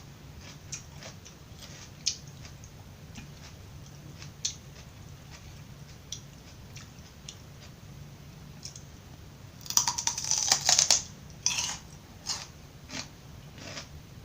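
Close-miked chewing of crisp raw vegetables: sparse small crunches, then a loud run of crunching from a fresh bite about ten seconds in, followed by a few more crunches.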